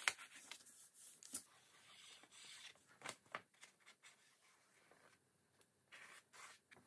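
Faint rustling of a sheet of printing paper being lifted and handled, with a few light taps and clicks in the first half as a liquid glue tube is worked along the paper's edge; little else is heard after that.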